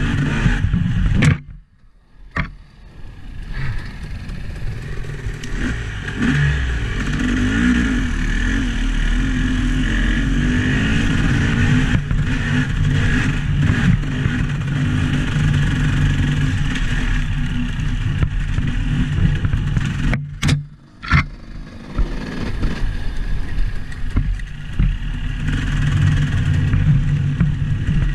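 A motor vehicle's engine running steadily under way, with rough low rumble and clatter. The sound cuts out almost completely for about a second near the start and again about two-thirds of the way through.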